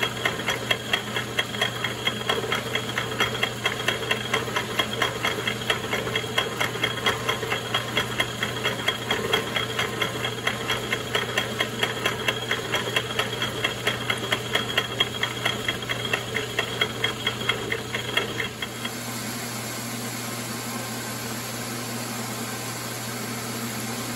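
Logan 922 lathe milling a Woodruff keyseat into a shaft with a spinning keyseat cutter, the cutter's teeth ticking in a rapid, even rhythm. About 19 seconds in it changes to the steady running hum of the lathe turning the shaft down between centres.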